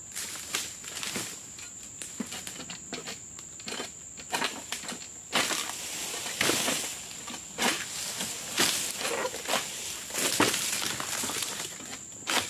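Irregular rustling, crunching and scraping of oil palm fronds as a pole-mounted egrek sickle is worked among them in the palm crown during pruning. The loudest bursts come about five to seven seconds in and again around ten seconds in.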